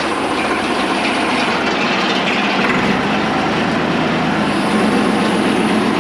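Old boatyard travel lift's engine, a farm irrigation pump engine, running steadily with a deeper low rumble coming in about three seconds in.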